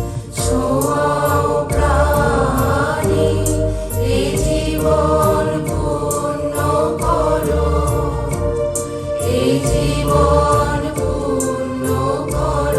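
A song played back through Audio Phonic G7 bookshelf speakers and recorded on a phone: a melodic passage without transcribed lyrics, a gliding lead line over bass and a steady drum beat.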